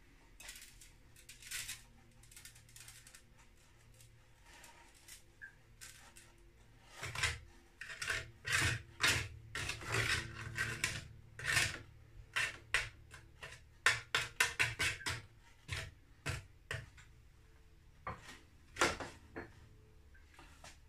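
A metal spoon scraping and tapping on a baking tray while flour is spooned and spread over it: a run of short scrapes and clicks, sparse at first and busiest from about seven seconds in.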